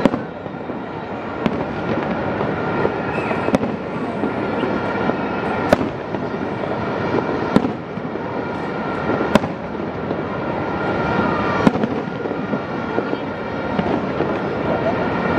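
Fireworks display going off: sharp bangs about every two seconds over a dense, continuous din of bursts and crackle.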